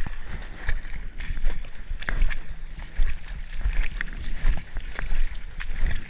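Wading through a shallow creek: water sloshing and splashing in uneven strokes, about one or two a second, with low rumbling on the microphone.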